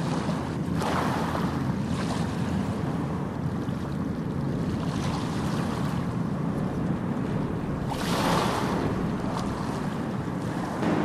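Steady low rumbling room noise picked up by a camera's built-in microphone, with a few brief soft rustling swells, the clearest about a second in and around eight seconds in.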